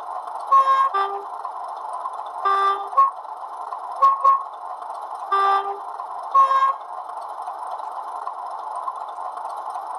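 Hornby HM7000 sound decoder playing its Class 31 diesel profile: the engine sound runs steadily while the two-tone horn sounds in short paired toots, about four pairs in the first seven seconds, then the engine runs on alone.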